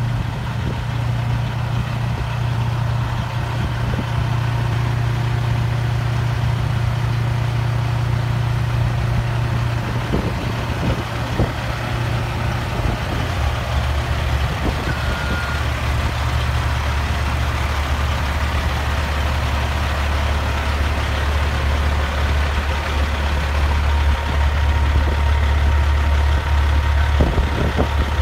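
Peterbilt 379 semi truck's diesel engine idling steadily, a low drone that drops lower in pitch about halfway through.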